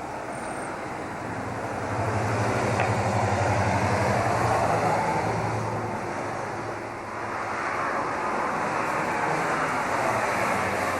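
Steady road and engine noise of a moving motor vehicle, with a low hum under it. It swells louder about two seconds in, dips, and swells again near the end.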